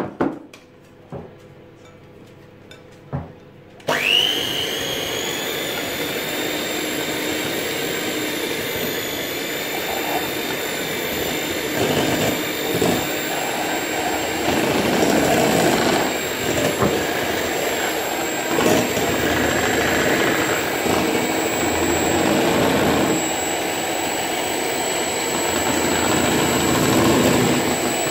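Electric hand mixer switched on about four seconds in, its motor whining up to a steady high pitch and running on, the beaters churning through a wet cake mixture in a glass bowl. A few light knocks come before it starts.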